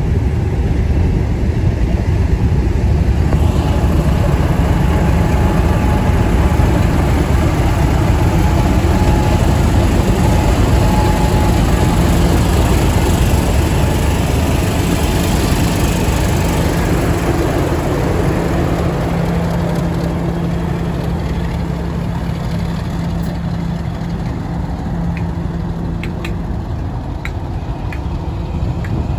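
Diesel locomotive engine running close by: a steady heavy rumble, with a held low hum coming in about halfway through.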